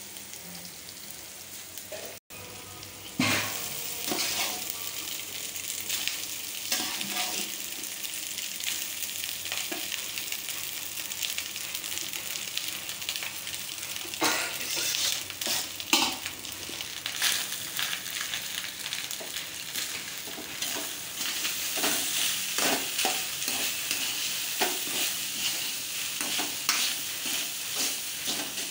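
Onions and chillies sizzling in hot oil in a steel kadai, with a steel ladle scraping and knocking against the pan as cooked rice is stirred through the tempering.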